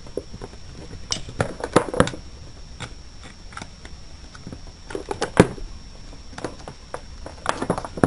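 Irregular clicks and knocks of a plastic electrical switch box being handled while its lid is screwed shut with a screwdriver.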